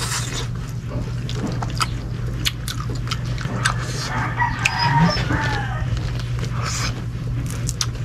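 Chickens clucking in the background, most clearly from about four to five seconds in, over a steady low hum. Scattered small clicks and smacks from eating with the hands run through it.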